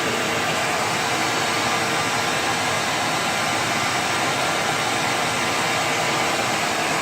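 Bissell PowerGlide Platinum bagged upright vacuum cleaner running steadily: a constant rush of motor and airflow with a faint steady tone under it.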